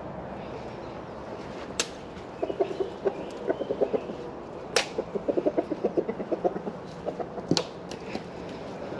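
Hens clucking in quick runs of short clucks, several a second, from about two and a half seconds in until near the end. Three sharp clicks or knocks stand out, the loudest about halfway through.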